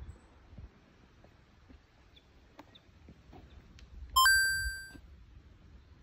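A bright chime sound effect about four seconds in: a quick upward run of short notes that settles into one ringing tone and fades out within about a second. It is the 'found it' sparkle that marks the discovery. A few faint clicks sit under it in quiet outdoor background.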